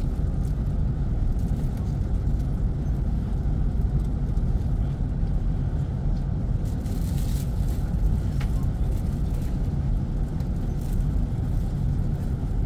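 Steady low rumble of airliner cabin noise heard from a passenger seat, with a few faint rattles about seven seconds in.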